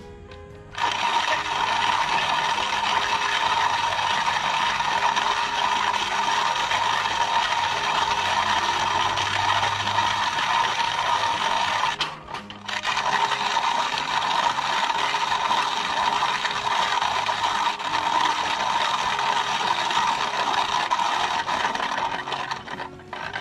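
Hand-cranked box coffee grinder grinding beans: steady grinding from the turning crank, with a half-second break about halfway through before the cranking resumes.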